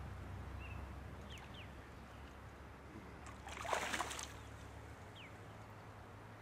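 Hooked carp thrashing at the surface, giving one brief noisy splash lasting about a second, about three and a half seconds in, over a faint steady low hum.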